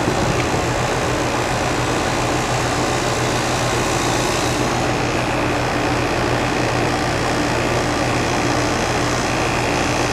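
Trane outdoor condensing unit running steadily, compressor hum under the condenser fan's rush, while the refrigerant is pumped down into the unit with a service valve closed and the low-side gauge watched.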